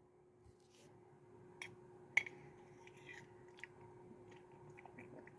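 Quiet, with faint scattered clicks and small handling or mouth noises. One sharper click comes about two seconds in.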